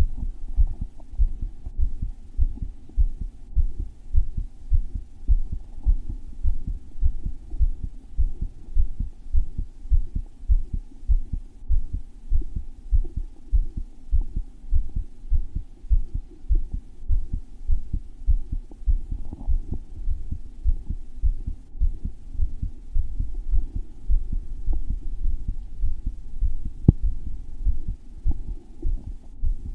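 Adult man's heartbeat picked up by a microphone strapped against his chest: hard, thumpy, pounding beats repeating at an even pace. A single faint click comes near the end.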